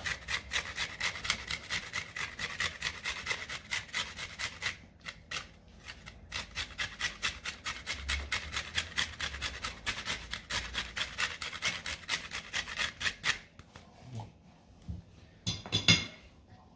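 Lime peel being rubbed over a fine grater, a rapid rasping scrape of about five strokes a second, grating zest. It pauses briefly about five seconds in and stops a few seconds before the end. It is followed by a couple of short knocks.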